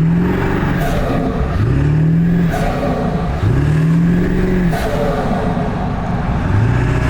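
Ford 7.3-litre Powerstroke turbo-diesel V8 pulling hard in several surges, its pitch rising each time and then dropping away, with the turbo whistling through a newly fitted S&B cold air intake.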